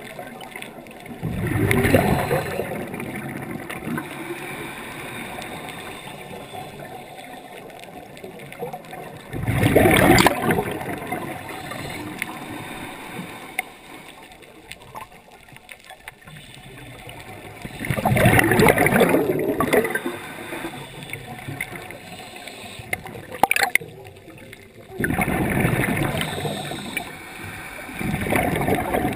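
Scuba diver's exhaled breath bubbling out of the regulator underwater: about four loud rushes of bubbles several seconds apart, each lasting a second or two, with a low hiss between breaths.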